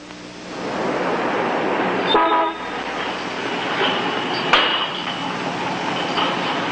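Street traffic noise with a car horn sounding one short toot about two seconds in, and a sharp click a little after four seconds.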